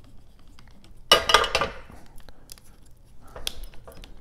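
Water spritzed from a spray bottle into a still-hot nonstick frying pan to keep the residue from drying and sticking. About a second in there is one brief hiss that fades out over most of a second, with scattered small ticks around it.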